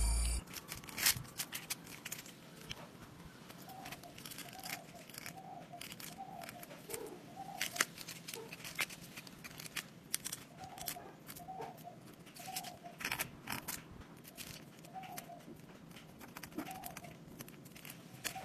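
Wooden spatula scraping and clicking against a small aluminium pan while baking soda is stirred into melted sugar for dalgona candy. A hen clucks softly in the background at short intervals.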